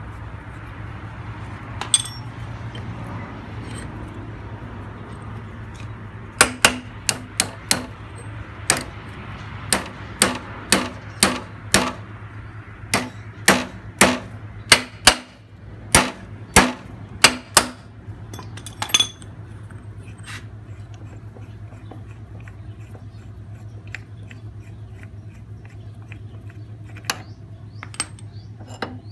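About twenty sharp, ringing metal-on-metal hammer blows at irregular half-second gaps, on a tool set in a motorcycle engine's flywheel, over a steady low hum. A few lighter metal clinks come before and after the blows.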